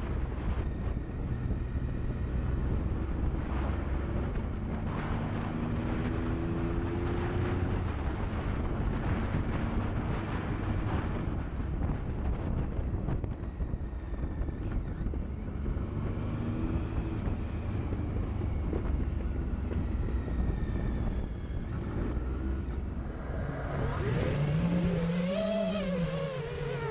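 Wind buffeting the microphone in a strong gale, a steady low rumble, with the whine of an Eachine Wizard X220S racing quadcopter's brushless motors rising and falling at times.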